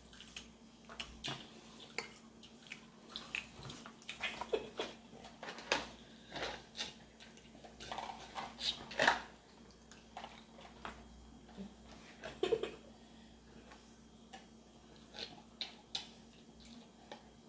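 Eating and drinking sounds at a table: scattered mouth noises of chewing and swallowing, gulps from plastic cups, and light clicks of cutlery against bowls, busiest in the middle of the stretch.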